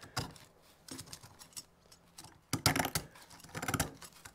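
Stanley knife blade scraping hard carbon deposits off a Citroën 2CV engine valve, in short bursts of scratchy clicks and rasps. The loudest strokes come about two and a half seconds in and again nearly a second later.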